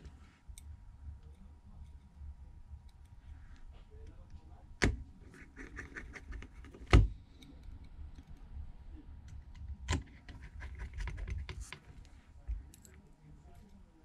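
Small ticks and taps of precision hand work: a small Phillips screwdriver and tiny screws going into a phone's frame. Three louder sharp knocks come about five, seven and ten seconds in.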